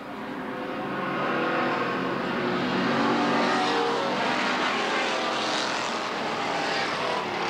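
A pack of stock car engines running at racing speed. The sound swells over the first few seconds as the cars come by, then holds steady.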